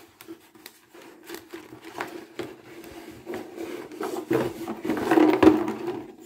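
A hand rummaging inside a cardboard package, with rubbing, scraping and small knocks that grow louder about four seconds in.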